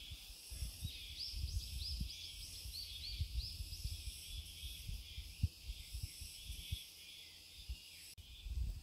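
Woodland ambience: a bird sings a quick series of short chirps early on, over a steady high drone of insects, with a low rumble of wind on the microphone.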